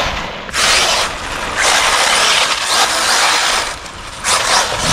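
Arrma Typhon 6S brushless RC buggy driven in surges of throttle over frozen grass and dirt. Its motor, drivetrain and tyres give a high hissing whir that rises and falls about three times.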